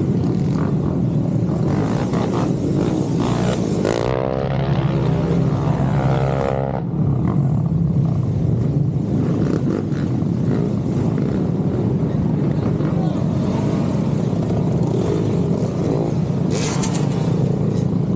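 Motorcycle engine running under way, with steady wind and road noise on the rider's microphone. An engine note rises and falls in a rev between about four and seven seconds in.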